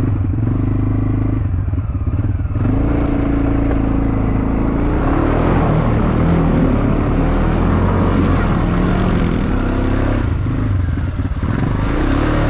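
Quad bike engine running and revving up and down as it is ridden through a deep mud hole. Mud and water splash under the tyres.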